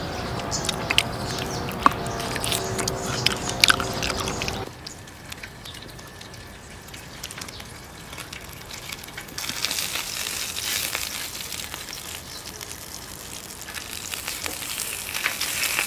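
Mouth sounds of chewing a bite of steak, with sharp wet clicks. About five seconds in this gives way to dry-aged steak sizzling in oil on a hot tabletop griddle as it is turned with metal tongs; the sizzle grows louder about halfway through and again near the end.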